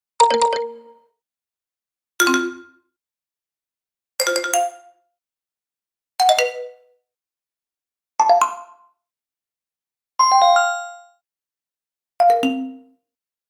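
Seven short multi-note chime sound effects, one every two seconds, each a different quick run of two or three bell-like notes that rings and fades within about a second.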